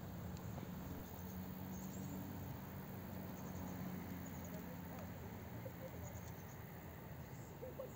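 Faint outdoor ambience: a steady low rumble with a few faint, short high-pitched chirps scattered through it.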